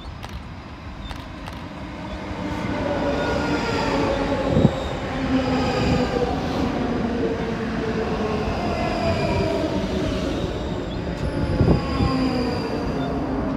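ScotRail electric multiple unit running in along the platform close by, its wheels rumbling under a cluster of whining tones that fall steadily in pitch as the train slows. Two sharp thumps come from the running gear, about five seconds and twelve seconds in.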